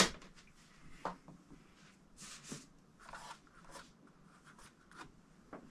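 A mains plug is pushed into a wall socket with one sharp click, followed by faint scattered clicks and a few short rustles of handling.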